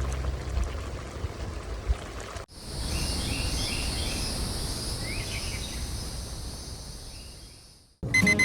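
Outdoor ambience: birds chirping a few times over a steady high hiss, the whole fading out near the end.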